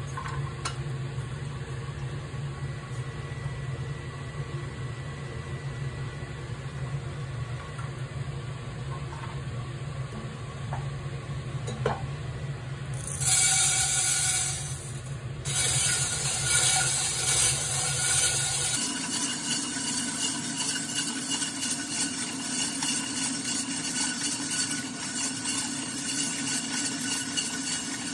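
Portable gas stove burner running with a steady low hum; about thirteen seconds in, green coffee beans pour into the cast-iron pot with a brief rush. The beans then rattle and scrape against the pot as a hand-cranked wooden stirrer turns them, the start of a home roast.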